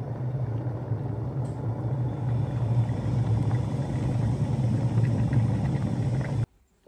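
Russell Hobbs electric kettle boiling, a steady, deep noise of water coming to the boil, with steam rising from the spout. It cuts off suddenly near the end.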